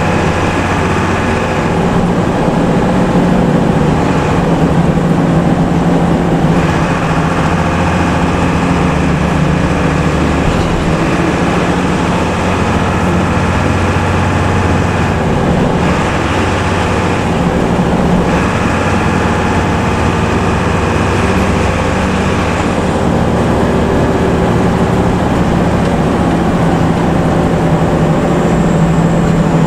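Intercity bus diesel engine and exhaust running steadily at road speed, a continuous low drone with tyre and road noise; the engine note changes a little about two-thirds of the way through.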